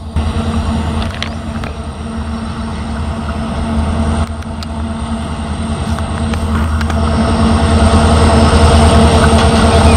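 Twin WDG4D and WDG4 diesel locomotives' engines running with a steady low drone, growing louder as they approach.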